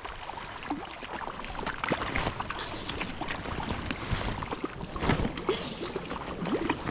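Irregular splashing and sloshing in shallow creek water over the steady rush of the stream as a hooked trout is brought to hand.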